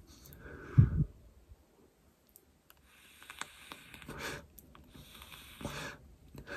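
A person drawing on pod vapes and breathing the vapor out: soft airy hisses of inhaling and exhaling. A louder low puff of breath comes about a second in, and a longer draw runs from about three to four and a half seconds in.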